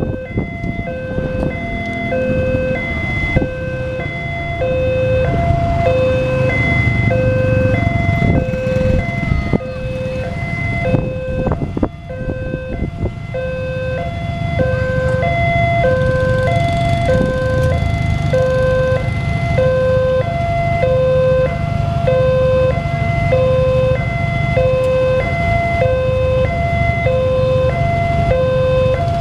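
Electronic railway level-crossing warning alarm sounding an endless two-tone pattern, high and low notes alternating about once a second, signalling that a train is approaching and the barriers are down. Under it, the engines of waiting motorbikes and a minivan are idling.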